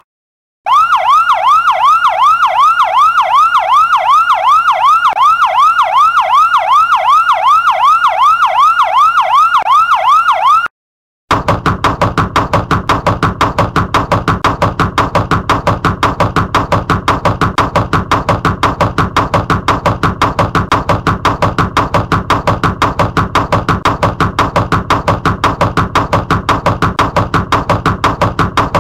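Electronic siren sound effect. It first gives rapid rising yelps, about three a second for roughly ten seconds. It then cuts out briefly and switches to a steady, fast-pulsing alarm tone.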